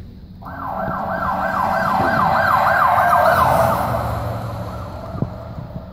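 Siren sound effect over a gym's loudspeakers, a wail that wavers quickly, about three times a second, swelling and then fading away: the opening of a dance team's routine music.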